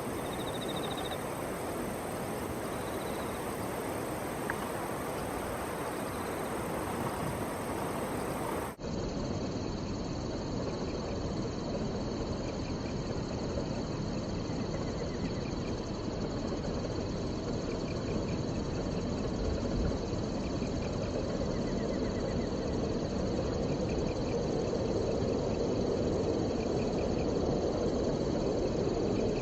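Outdoor ambience: a steady rushing noise with insects chirping faintly in short repeated trills. The sound changes abruptly about nine seconds in, as the recording cuts to another take.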